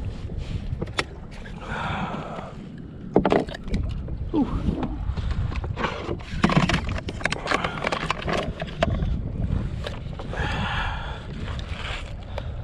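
Clicks, knocks and rustling from handling a triggerfish on a plastic fishing kayak while the hook is worked free with pliers, over a steady low rumble of wind.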